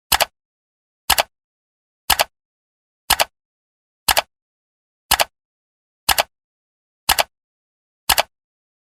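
Clock-style ticking sound effect of a countdown timer, one quick double click each second, nine in all, counting off the seconds and stopping near the end.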